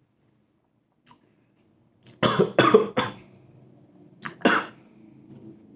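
A person coughing: three quick coughs about two seconds in, then one more a little later.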